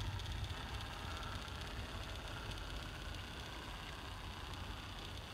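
HO scale brass model of a Pennsylvania Railroad R-1 electric locomotive running slowly along the track: a steady, faint low hum from its motor and MP-type gearing, with a light hiss of the wheels on the rails.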